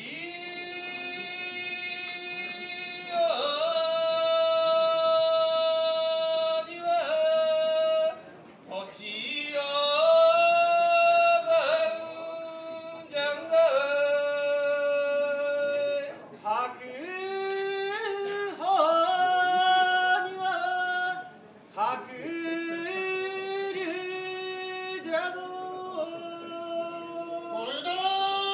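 A sumo yobidashi's chanted fure-daiko call, sung unaccompanied in a high male voice. He holds long, wavering notes that slide from one pitch to the next, phrase after phrase with short pauses for breath.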